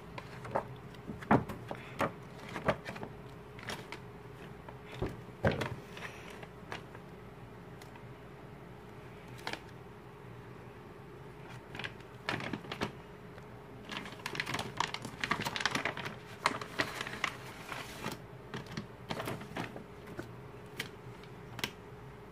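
Glossy photobook pages being flipped and handled: irregular sharp paper taps and flaps, with a denser stretch of rustling about two-thirds of the way through.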